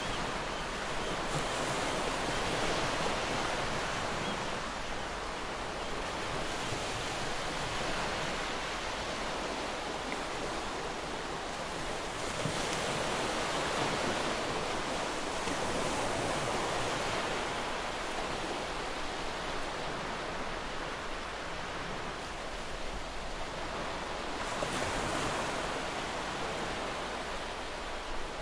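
Sea waves washing onto a shore: a steady rushing hiss that swells and eases every few seconds.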